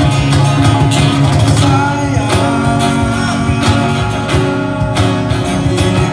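Live acoustic band music led by a strummed acoustic guitar, playing steadily.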